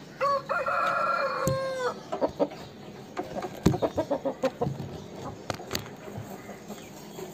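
Aseel rooster crowing once, a call of nearly two seconds that drops in pitch at the end, followed by a run of short clucks.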